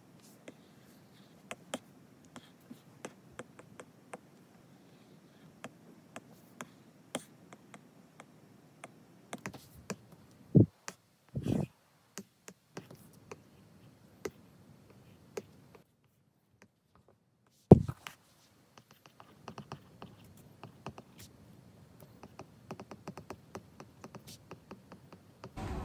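Apple Pencil tip tapping and clicking on an iPad's glass screen in short, irregular light taps, with a few louder thumps midway.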